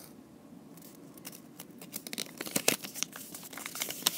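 Folded paper leaflet being handled and unfolded, crinkling in quick crackles that start about a second and a half in.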